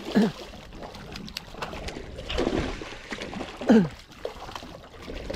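A hooked catfish thrashing and splashing at the surface of the water as it is played in. Twice, near the start and again later, a man's voice gives a short falling exclamation over the splashing.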